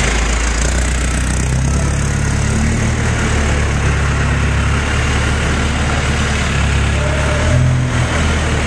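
Seagrave ladder fire truck's engine idling with a steady low hum, the engine note rising briefly about seven and a half seconds in.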